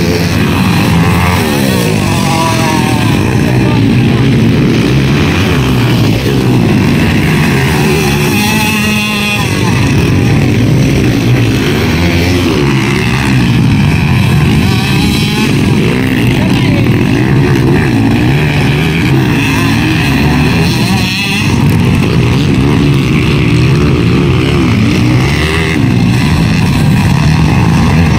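Several dirt bike engines revving hard and running on a muddy track, their pitch rising and falling again and again as riders accelerate, shift and pass close by.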